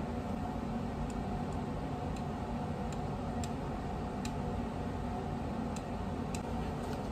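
Metal forceps and a dissecting probe clicking lightly against a plastic petri dish, about nine faint, irregular ticks, over a steady low room hum.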